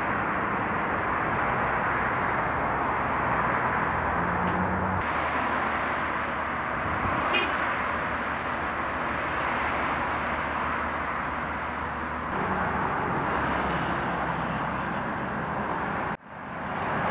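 Road traffic noise on a busy city street, cars driving past in a steady hum. The background shifts abruptly a few times, and a short high-pitched sound rises above it about seven seconds in.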